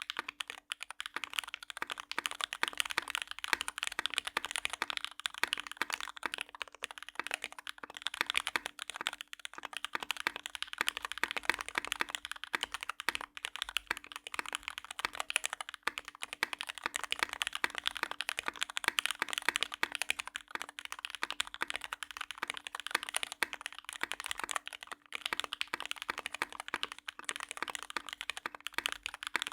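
Continuous fast typing on a Kei mechanical keyboard with lubed Cherry MX Black Hyperglide linear switches, an aluminum plate and PBT keycaps: a dense, unbroken stream of keystroke clacks.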